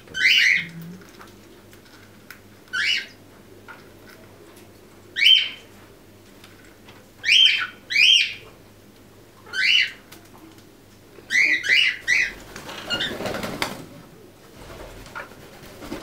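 Quaker parrots (monk parakeets) giving short, sharp chirps, about nine in all, a second or two apart, with a quick run of three near the end. A brief rustling noise follows the run.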